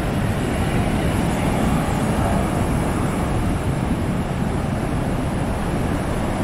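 Heavy surf on a rough monsoon sea: breaking waves make a loud, steady rush of noise with a deep low rumble. The sea is at the height of its khareef-season churning.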